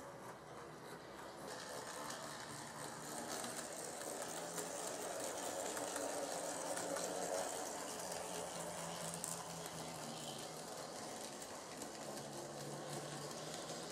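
HO-scale model DF50 diesel locomotive and its mixed train running on the layout's track: a steady whirr of the motor with rattling wheels on rail joints, growing louder as the train passes close about halfway through and easing off after.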